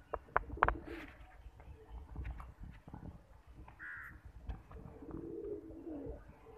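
Domestic pigeons cooing in low murmurs, mostly in the second half, with a few sharp clicks in the first second.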